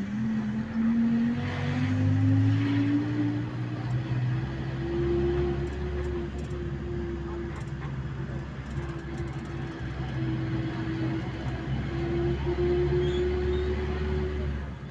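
A vehicle's engine running under load, heard from inside the moving vehicle: its pitch rises over the first few seconds and then holds steady, over a constant rush of road noise.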